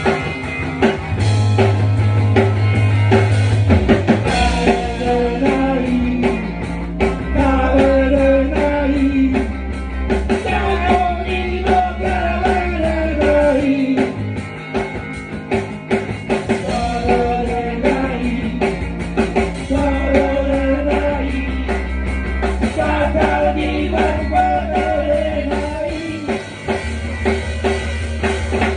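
Rock band playing live, with drum kit, electric guitar and bass, and a voice singing the melody from about four seconds in.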